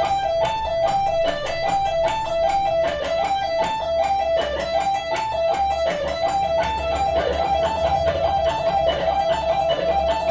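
Electric guitar playing a slow, repeating lead lick: picked notes alternating with pull-offs between the 15th and 12th frets, with a brief reach to the 17th, in an even stream of notes.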